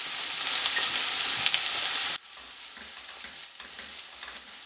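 Chopped onion hitting hot tempering oil in a non-stick pan, sizzling loudly. About two seconds in, the sizzle drops suddenly to a quieter frying hiss while a wooden spatula stirs the onion.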